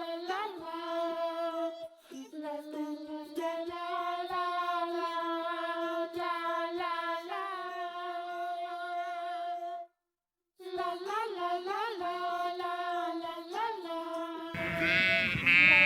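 A wordless high voice sings or hums a melody in long held notes, breaking off briefly about ten seconds in. Near the end, a sheep bleat cuts in, louder than the singing.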